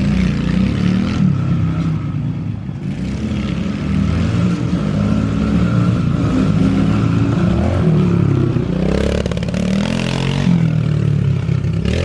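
Small 110 cc four-stroke pit bike engine being ridden hard, its pitch repeatedly climbing and dropping as the rider works the throttle and gears.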